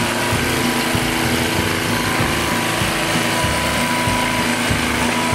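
Craftsman rototiller's 6 hp Tecumseh single-cylinder engine running steadily after starting up. It has just had a new ignition coil fitted, so the steady running shows the repair worked.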